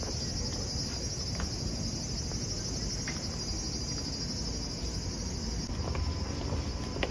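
Dense, steady high-pitched chirring of insects on a summer evening, over a low rumble, with a few faint taps of footsteps.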